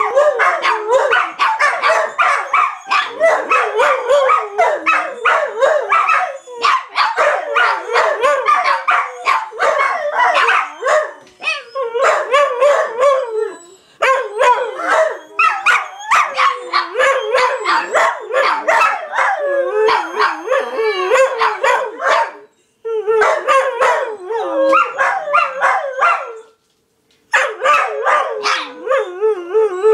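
Several dogs howling together in overlapping, wavering howls, mixed with short barks and yips, with a few brief breaks.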